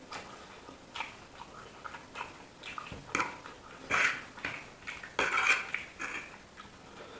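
Close-up eating sounds: a person chewing and smacking food, with light clicks in between. Loudest about four seconds in and again just after five seconds.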